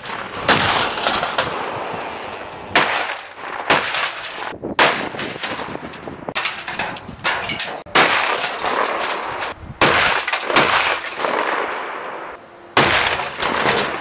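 A run of about eight gunshots, one every second or two, each followed by a long echo, as a microwave oven is shot apart and knocked flying.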